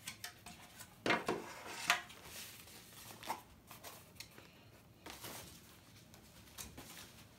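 Plastic wrapping and cardboard packaging being handled: a run of rustles, scrapes and light knocks, the loudest about two seconds in.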